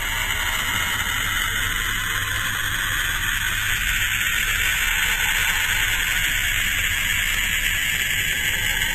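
Space sound presented as the 'song of Saturn', a sonification of the planet's emissions: a steady, eerie hiss that changes slowly, with a low hum beneath it.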